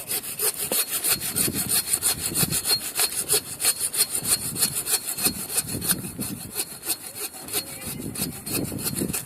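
Hand saw cutting through a tree trunk in quick, steady back-and-forth strokes, several rasps a second, the teeth grating through the wood.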